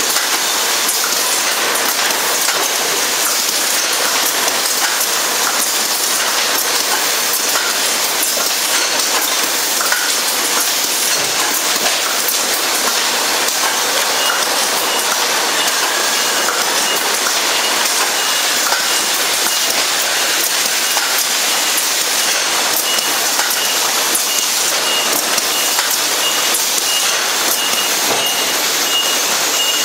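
Steady factory noise of a beverage filling production line: a dense hiss with many small clicks and rattles. About halfway through, a high beep starts repeating at an even pace.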